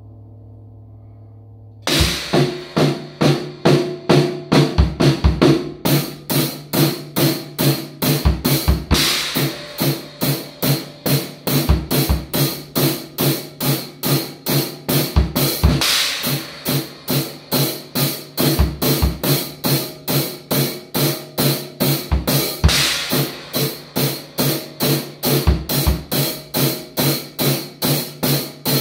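A gong's faint ringing dies away. About two seconds in, a drum kit starts a steady rock beat: kick drum, snare and hi-hat or ride strokes at about four a second, with a crash cymbal now and then.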